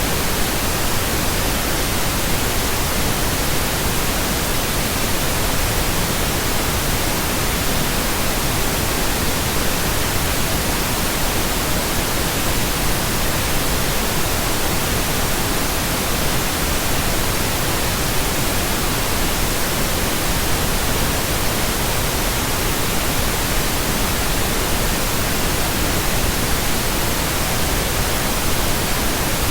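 Steady, synthetic pink noise: an even, unbroken hiss at every pitch, with no rhythm or change.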